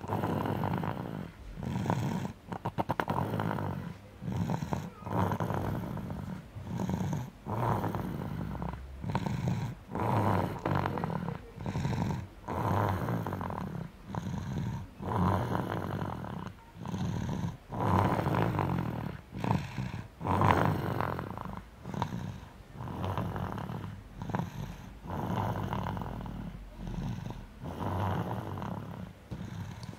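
Snoring in sleep: a steady run of short, rasping breaths, about one a second.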